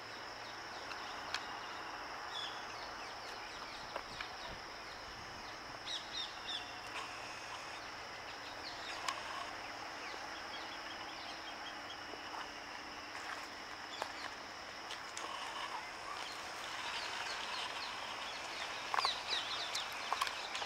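Birds chirping and calling on and off over a steady high-pitched hiss of outdoor background noise, busiest near the end.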